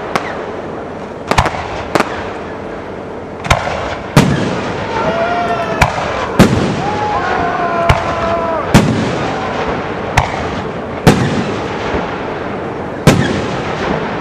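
Aerial firework shells bursting in a display: about a dozen sharp bangs, one every second or two, each trailed by a rolling echo.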